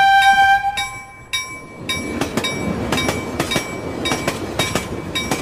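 A ringing chime tone that fades out about a second in, then a train running past: steady rolling rumble with the clickety-clack of wheels crossing rail joints.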